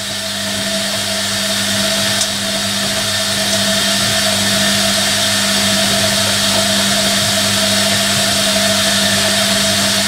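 Hoover Electronic A3172 front-loading washing machine filling with water for its first rinse: a steady hum under the hiss of water rushing in, growing slightly louder over the first few seconds.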